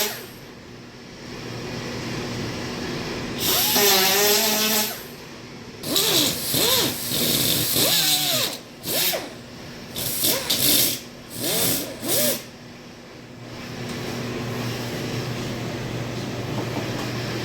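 A power tool run in short bursts, its motor pitch rising and falling as it speeds up and slows down: one longer run a few seconds in, then about half a dozen short ones, over a steady shop hum.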